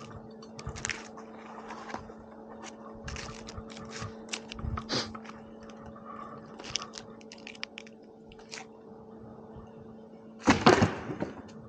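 Scattered clicks, knocks and scrapes of tree-climbing gear against bark, over a steady hum. A louder crunching scrape comes about ten and a half seconds in.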